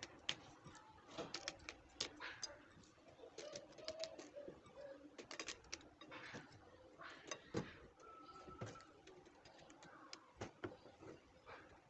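Faint irregular clicks and taps over quiet room tone.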